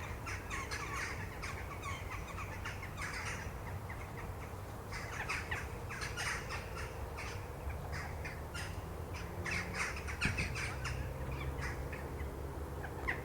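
A flock of jackdaws chattering at their night roost, settling into the trees to sleep: many short, sharp overlapping calls in three busy bursts, with quieter gaps between them.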